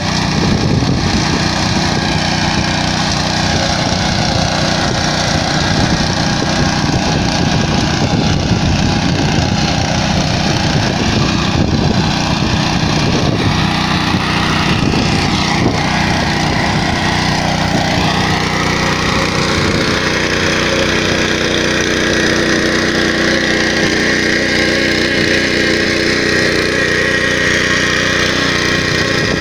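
The Honda GX200 single-cylinder four-stroke petrol engine of a walk-behind power weeder running steadily under load as its rotary tines till soil between crop rows, its note shifting slightly about halfway through.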